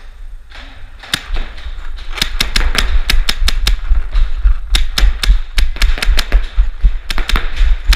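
Paintball markers firing in rapid, irregular pops, several a second, starting about a second in and growing denser, with a heavy low rumble from the player moving with the camera.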